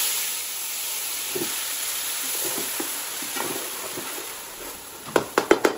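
Onion paste sizzling in hot oil in a metal pot, starting loudest as it lands and slowly fading while a slotted spoon stirs it. About five seconds in, the spoon knocks sharply against the pot several times in quick succession.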